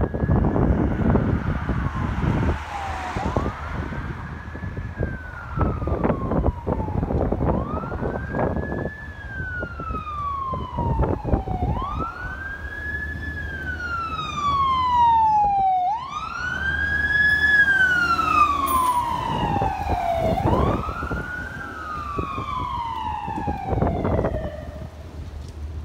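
Fire engine's siren wailing as it approaches, each cycle rising quickly and falling slowly, about one every four seconds. A second, higher siren joins in over the second half, and vehicle engine and tyre noise is heard near the start and again around the middle.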